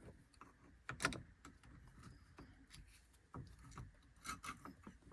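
Faint handling of small metal parts at a car's steering column: light rubbing and clicks as the screws and loose metal cover plate over the ignition barrel are worked free, with one sharper click about a second in and a few more clicks near the end.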